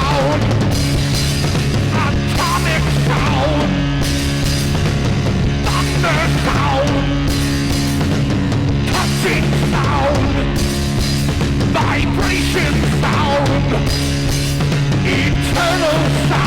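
A rock band playing loud, driving punk-style music live, with a wavering, bending high line recurring over steady low notes and drums.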